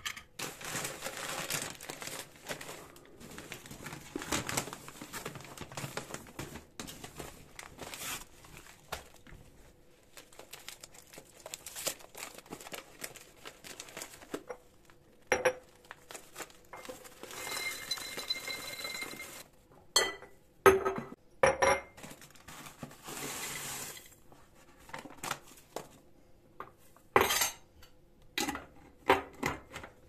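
Glass jars clinking and knocking as they are set down on a stone countertop, with paper snack bags rustling. Roasted peanuts are poured from a paper bag into a glass jar. Sharp glass-on-stone knocks come in a cluster a little past the middle and again near the end.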